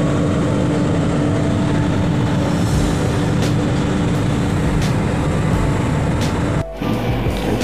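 Steady cabin noise of a jet airliner in cruise, jet engines and rushing air with a constant low hum. It cuts out for a moment near the end, then carries on a little quieter.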